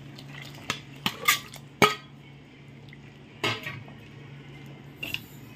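Stainless-steel ladle clinking against a steel bowl and cooking pot as small fish are scooped up and slid into simmering broth: about six sharp clinks at uneven spacing, the loudest a little under two seconds in, over a steady low hum.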